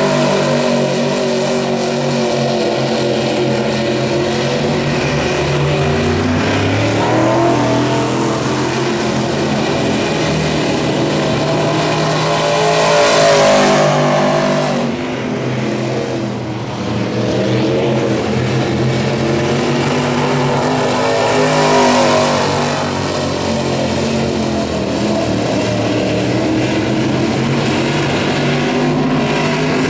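Crate late model dirt race cars' V8 engines at racing speed on a dirt oval. The engine pitch rises and falls with throttle through the laps, and the sound swells as a car passes, about halfway through and again about two-thirds in.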